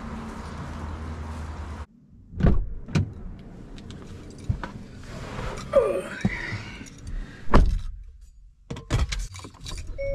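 Knocks, rattles and a short squeak as someone gets into a car, with keys jangling. A steady background noise runs for the first two seconds, then stops abruptly.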